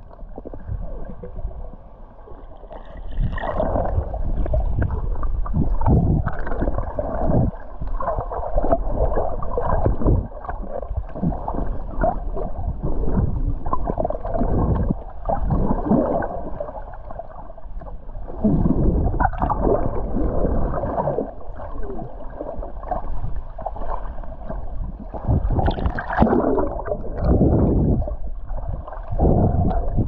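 Outrigger boat on a rough sea: water surging and splashing with wind on the microphone, loud and uneven.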